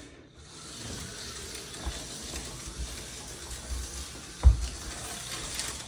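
Handling noise from a phone camera being moved and set in place: a steady rubbing hiss with low bumps, and one sharp thump about four and a half seconds in.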